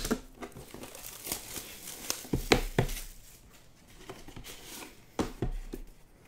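Plastic wrap crinkling and cardboard rustling as a sealed trading-card hobby box is unwrapped and opened, with several sharp taps and clicks of the cardboard.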